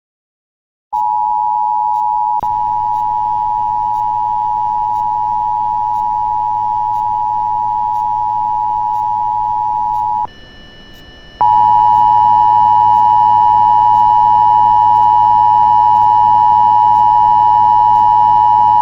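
Emergency Alert System two-tone attention signal sounding steadily for about nine seconds, breaking off for about a second, then sounding again. It marks the start of an emergency alert, here a Local Area Emergency. A faint low buzz runs underneath.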